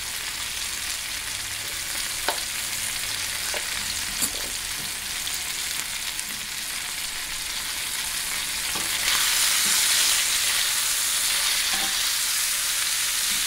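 Thick ribeye steak sizzling as it sears in hot olive oil in a frying pan on high heat. The sizzle grows louder about nine seconds in, with a few light clicks.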